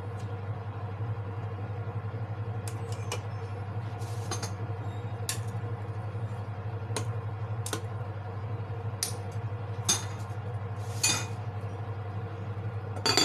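A stirring utensil clinking against a ceramic soup pot about ten times at irregular intervals, over a steady low hum, then a glass lid set down on the pot with a louder clink near the end.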